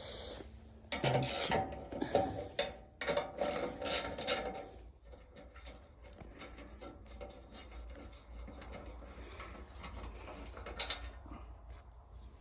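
Irregular scraping and rubbing of hand-cleaning leftover rice grain and chaff out of a Kubota ER211 combine harvester, with a run of louder strokes in the first few seconds, then fainter.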